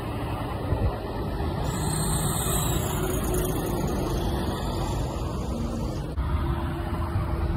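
Heavy truck passing on a road: a steady low engine rumble with tyre and road noise. The sound changes abruptly about six seconds in.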